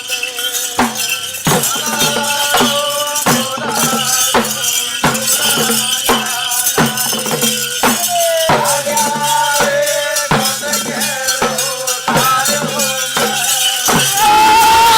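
Rhythmic percussion music: evenly spaced strikes, about one and a half a second, with a jingling, rattle-like shimmer and a held melody line over them; it gets louder near the end.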